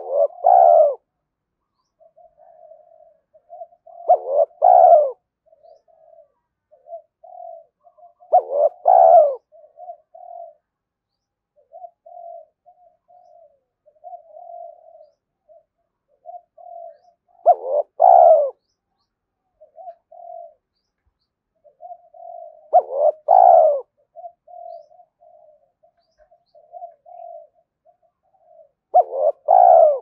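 Spotted dove cooing: loud call phrases come about every four to five seconds, with a longer gap in the middle, and softer short coos fill the spaces between them.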